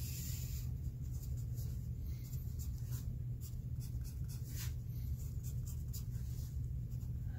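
Graphite pencil scratching on paper, drawing a line and then short tick-mark strokes, over a steady low hum.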